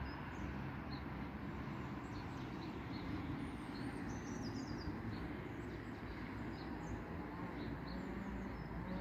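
Small birds chirping now and then over a steady low rumble.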